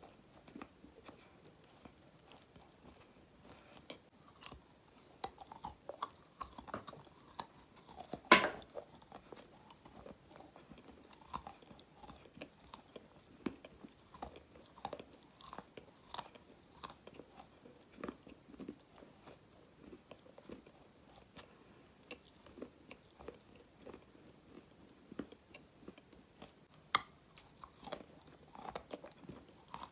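Dry black edible clay being bitten and crunched close to the microphone: a steady run of small crackles and creaks as it is chewed, with one loud sharp crack about eight seconds in and another near the end.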